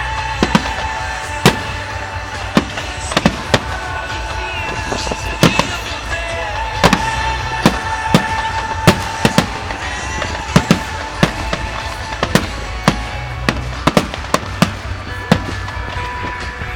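Fireworks display: a loud, irregular run of sharp bangs from bursting shells, about two a second, over music with a steady bass playing through loudspeakers.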